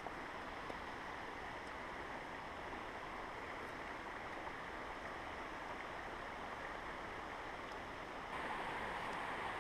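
Waterfall rushing: a steady hiss of falling water that gets a little louder and brighter about eight seconds in.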